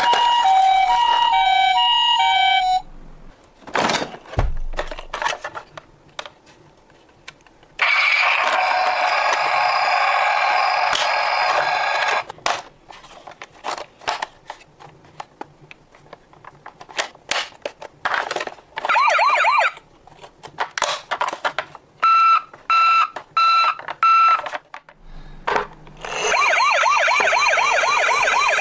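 Electronic siren sounds from battery-powered toy emergency vehicles: a two-tone hi-lo siren at first, later a warbling yelp siren and a run of short beeps. In between are quieter stretches of plastic clicks and rattles as the toy ambulance's doors are worked by hand.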